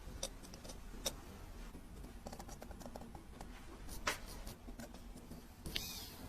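Scattered light clicks and small scrapes of hand tools working on parts of an old watch over a steady low hum, with a brief louder scrape near the end.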